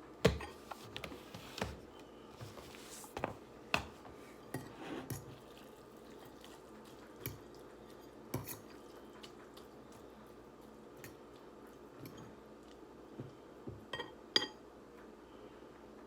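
Scattered light clicks and clinks of an eating utensil against a noodle bowl, at irregular intervals, with a louder pair near the end.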